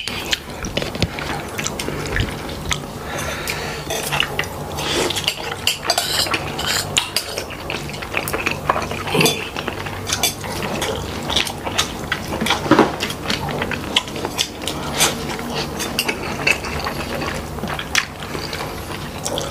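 Close-up mukbang eating sounds of a person chewing beef crispy pata: many irregular sharp clicks and mouth noises over a steady low hum. A spoon clinks against a plastic container near the end.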